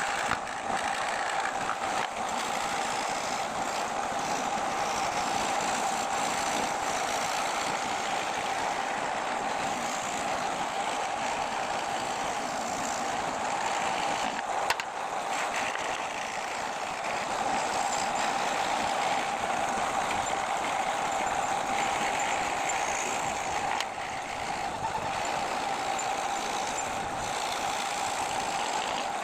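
Electric woodworking power tool running steadily: a constant motor tone with a hissy noise over it, and one sharp click about halfway through.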